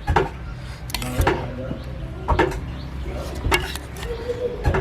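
A metal kitchen utensil knocking against a dish five times, about a second apart, each knock ringing briefly, over a low steady hum.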